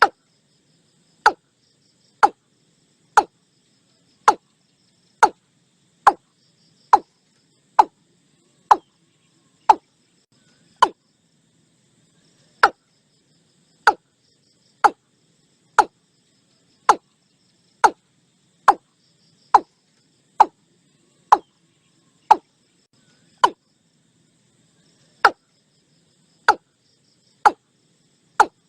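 Watercock calling: a long series of short, sharp knocking notes, about one a second, with a couple of slightly longer pauses.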